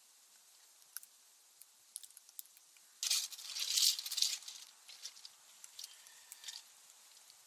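Freezing rain pellets ticking here and there, with a louder rustling, rattling burst lasting about a second and a half from about three seconds in.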